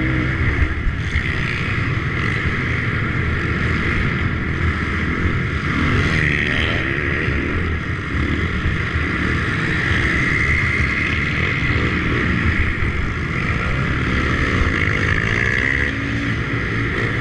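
110cc pit bike engines running on a dirt track, heard from the rider's helmet with wind noise on the microphone; the engine note rises and falls as the throttle is opened and closed.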